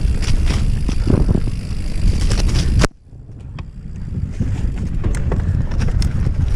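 Wind buffeting the microphone and clattering rattles of a fast descent over rough trail. About three seconds in, the sound cuts out suddenly, then builds back up over the next couple of seconds.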